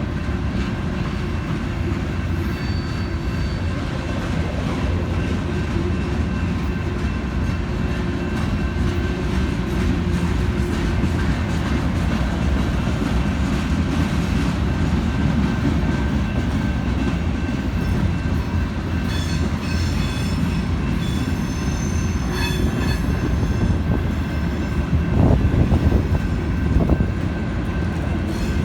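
Freight cars of a manifest train rolling past with a steady rumble of steel wheels on rail. About two-thirds of the way through, high-pitched wheel squeal comes in for a few seconds, and a few clunks follow near the end.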